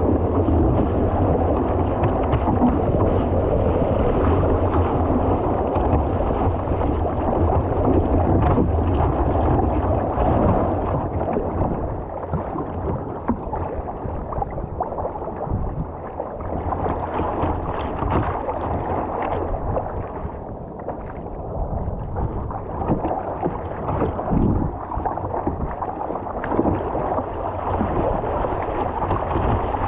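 Water rushing and splashing along a surfski's hull as it runs on a wave, mixed with wind buffeting the deck-mounted microphone. The rush eases off after about ten seconds as the boat slows, then builds again near the end as it picks up speed.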